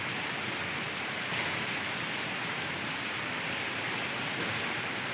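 Steady, even rush of heavy rain together with a swollen, flooding river.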